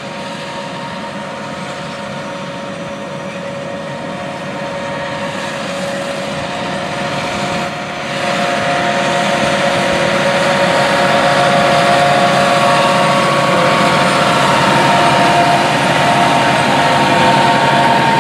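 John Deere 8R-series tractor's diesel engine running under load as it pulls a wide corn planter past, with a steady whine over the engine and the planter's rattle. It grows louder, stepping up about eight seconds in as the tractor and planter come close.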